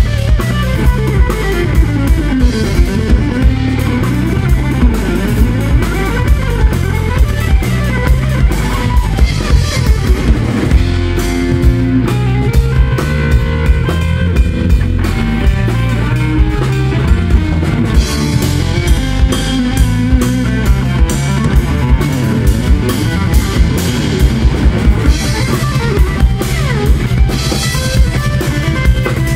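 Live instrumental trio of electric guitar, electric bass and drum kit playing, the guitar taking the lead over a steady beat of drum hits. In the first several seconds the guitar line sweeps rapidly up and down in pitch.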